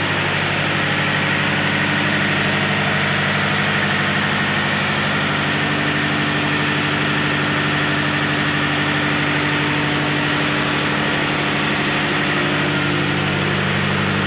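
Marine diesel engines running steadily in a tugboat's engine room: a loud, even drone that holds one speed throughout.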